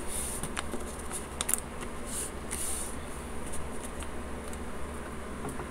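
Soft rustling and rubbing of a folded paper strip being creased and smoothed flat by hand against a wooden tabletop, with a few light ticks.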